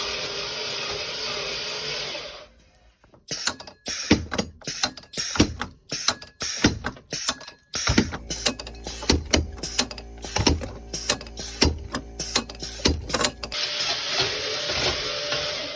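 A custom-built animatronic prop's mechanism running under test. A steady whirring hiss opens and closes the stretch, and between them come about ten seconds of rapid, irregular mechanical clicks and clacks from its moving parts.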